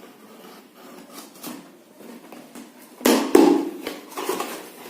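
Parcel packaging being cut and torn open by hand: faint scraping and small snips, then a loud rustling tear about three seconds in that lasts over a second.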